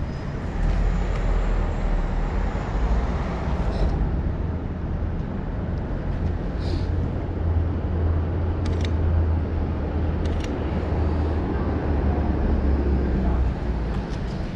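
Road traffic rumbling low and steady under a steel road bridge, including a car driving past. Five or six short, sharp clicks stand out over the rumble.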